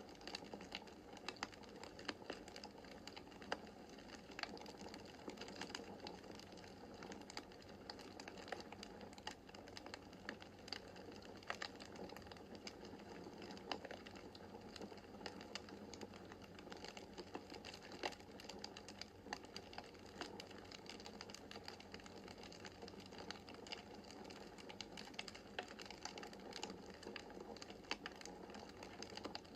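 Wood fire crackling in a fireplace: a quiet steady rush of flame with frequent irregular sharp pops and clicks.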